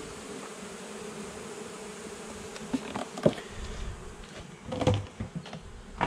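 Honey bees buzzing steadily around an open hive, with a few sharp clicks and knocks of hive-tool handling about three and five seconds in.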